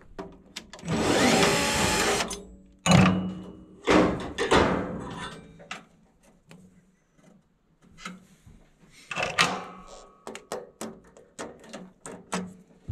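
Handling noise at a furnace as the blower motor's capacitor is removed: a steady noisy burst lasting about a second and a half near the start, then scattered clicks, scrapes and light metal knocks from the screwdriver and the capacitor.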